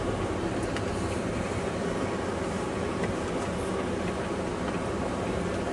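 Car running and moving slowly over a snow-covered road, heard from inside the cabin: a steady engine and tyre rumble with a few faint clicks.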